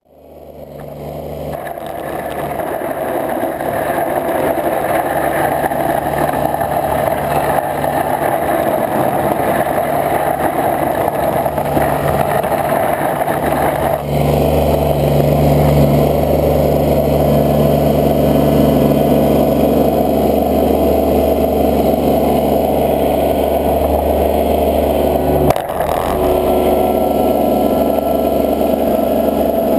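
Engine of a snow-plowing vehicle running steadily under load as its orange blade pushes through deep snow. The sound fades in over the first few seconds, its note deepens about halfway through, and there is a short click near the end.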